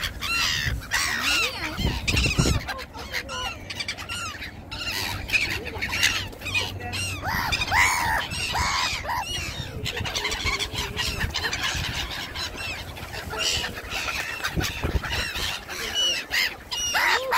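A flock of black-headed gulls calling over and over at close range: many short, rising-then-falling cries overlapping one another.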